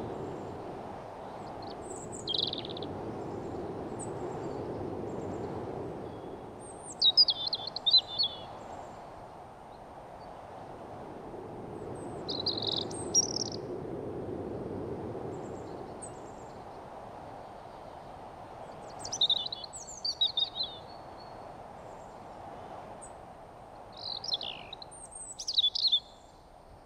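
Wild birds giving short, chirpy calls in scattered clusters, about five bursts with pauses between them, over a steady low background of outdoor noise that swells and fades.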